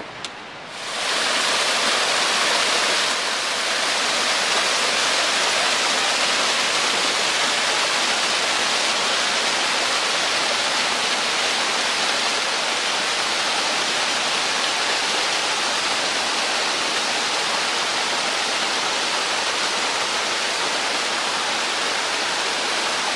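Waterfall rushing: a steady roar of falling, splashing water that comes in about a second in.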